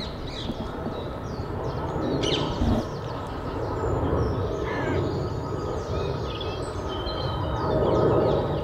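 Outdoor ambience: small birds singing and chirping over a steady background rush, with a faint constant tone.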